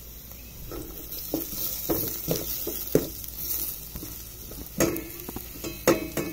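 Sliced ginger sizzling in hot oil in a metal pot while a metal spoon stirs it, scraping and clinking against the pot repeatedly.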